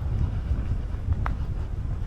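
Wind buffeting a moving microphone, a low uneven rumble, with one brief squeak a little past a second in.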